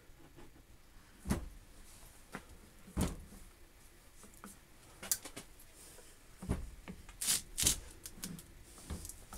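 Scattered knocks and clicks of metal parts being handled and fitted on a workbench while a small guillotine is put back together: about half a dozen separate strikes, the loudest about a second in and about three seconds in.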